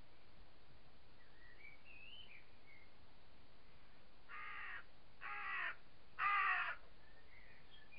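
Cat snarling in a face-off with another cat: a faint wavering yowl, then three short harsh snarls, each louder than the last.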